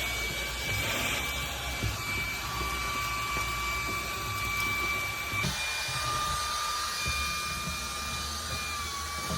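Vacuum cleaner running steadily with a high motor whine over a rushing airflow, vacuuming a vehicle's cab floor. The whine dips slightly in pitch near the end.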